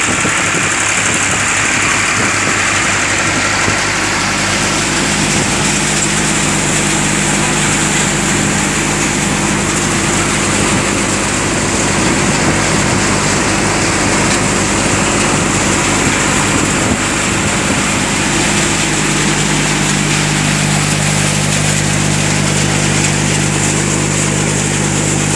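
Massey Ferguson 7250 tractor engine running steadily under load, driving a Shree Ganesh multi-crop thresher through the PTO as it threshes groundnut. The engine's steady hum sits under the continuous rushing noise of the threshing drum and blower.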